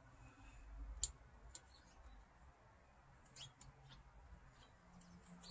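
Near silence with a few faint, scattered clicks, the sharpest about a second in.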